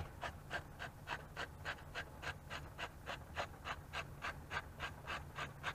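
Salt shaker shaken over a pot of soup, an even run of about four rattling shakes a second.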